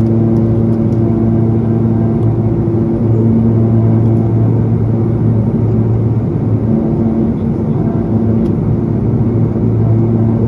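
Cabin drone of a Pilatus PC-12's single Pratt & Whitney PT6A turboprop in flight, heard from inside the passenger cabin. A steady low rumble carries a few held propeller tones, which fade for a few seconds in the middle and then swell back.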